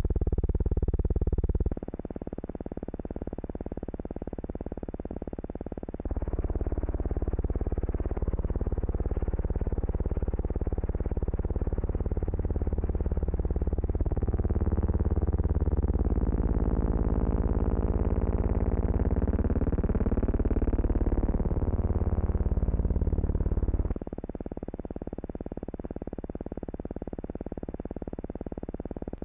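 Steady droning hum with hiss, the noise of a silent newsreel's transfer rather than any sound from the flying boat itself. It gets louder about six seconds in, swoops slowly up and down in pitch in the middle, and falls back to the quieter hum near the end.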